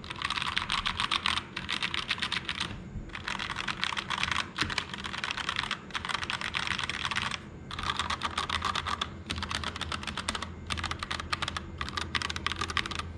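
Typing on the alpha keys of a Keychron K2 V2 mechanical keyboard with stock red linear switches and a thin foam layer in the case: fast, continuous keystroke clacks with several brief pauses.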